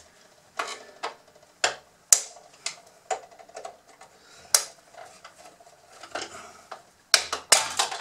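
Hard plastic body parts of a Bruder CAT D11 toy bulldozer clicking and clacking as they are handled and pried at to release their snap-in tabs: about a dozen separate sharp clicks, with a quick cluster near the end.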